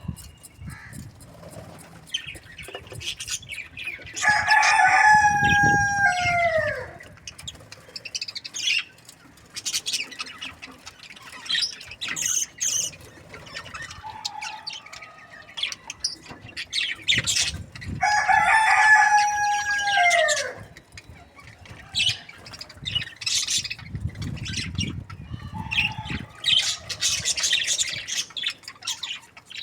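A rooster crowing twice, each crow about three seconds long and dropping in pitch at the end, the two some thirteen seconds apart. Between the crows, small birds chirp in quick short calls.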